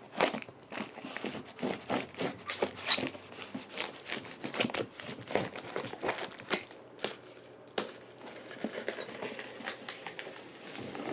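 Cardboard shipping box being opened by hand: tape tearing and cardboard and packing crinkling, in a quick, irregular run of short scrapes and clicks.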